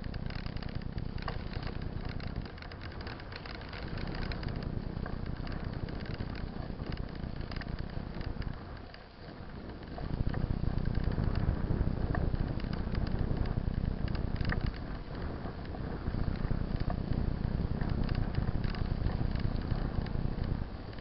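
Mountain bike riding over a wet gravel track: steady low rumble of wind buffeting the camera microphone and tyres rolling on gravel, with scattered small crackles of stones and bike rattle. The rumble dies down briefly about nine seconds in, then comes back louder.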